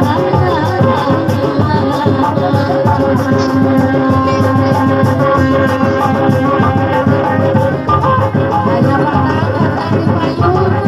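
Kuda lumping accompaniment music: drums keep a steady beat under fast rattling percussion, with a melody line of held and bending notes.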